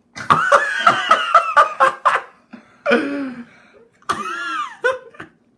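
Hard, high-pitched laughter in quick pulses for about two seconds, then two shorter high cries, the second rising and falling in pitch.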